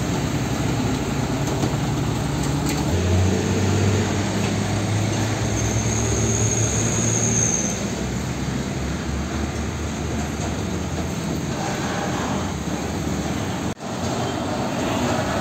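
Heavy diesel cargo trucks driving past at low speed, engines running with a deep hum, amid street traffic. A brief high squeal sounds about six to seven seconds in.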